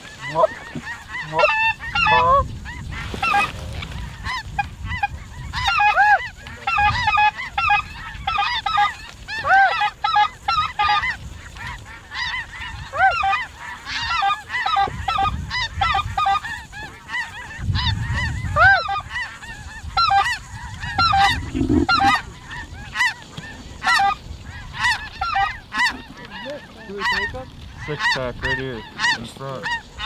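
A large flock of snow geese calling: a dense, unbroken chorus of short, high honks from many birds at once.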